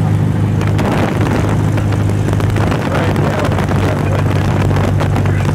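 Light aircraft in flight, heard from inside the cabin with the door and window open: a steady engine and propeller drone, with wind rushing and buffeting the microphone.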